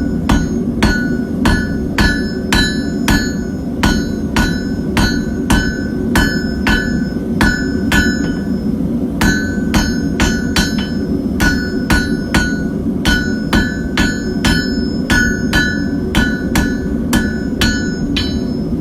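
Hand hammer striking hot steel on an anvil at about two blows a second, each blow ringing briefly, as a bar is drawn out to a point for a hook knife; the hammering breaks off for a moment about eight and a half seconds in, then resumes. A steady low rush runs underneath.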